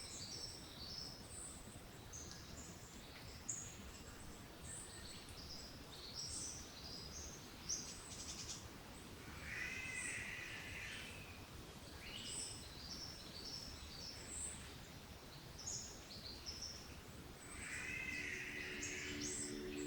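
Subtropical rainforest bird chorus: many short, high chirps and whistles overlap throughout, and twice a longer, lower call stands out, about halfway through and near the end.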